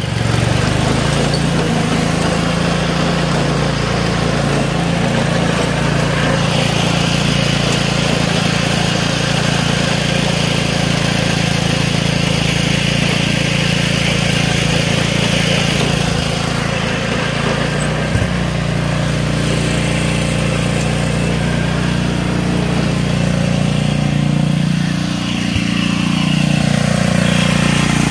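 The 6-horsepower single-cylinder engine of an early-1960s Ariens Emperor riding mower running steadily as the mower drives along in fourth gear. Its note shifts a little past halfway and dips briefly near the end.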